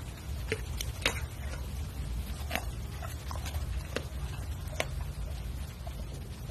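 Doberman eating raw food: irregular wet smacks and chewing clicks as it mouths food off the floor.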